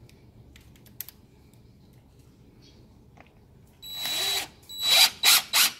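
DeWalt cordless driver driving a screw into a metal strike plate on a door jamb. It starts about four seconds in with one longer run carrying a steady high whine, then three short, louder trigger bursts as the screw is run home.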